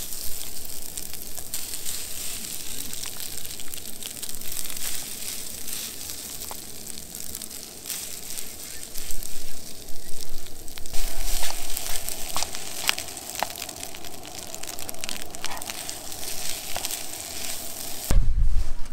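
Rice and chopped green chilies sizzling in a hot frying pan, with a spatula scraping and tapping against the pan as the rice is tipped in and stirred. A short low thump near the end.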